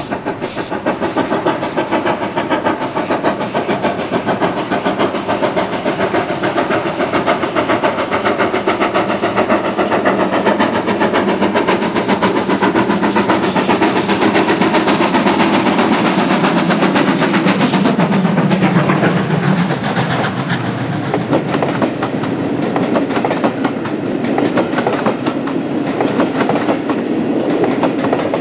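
Great Western Railway steam locomotive running under steam with a rapid, regular exhaust beat, growing louder as it approaches and loudest as it passes about two-thirds through. After it, the coaches' wheels clatter over the rail joints.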